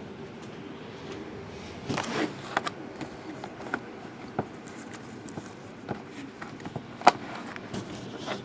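Handling of trading-card boxes: scattered light clicks, knocks and rustles, with a sharp click about seven seconds in, over a faint steady room hum.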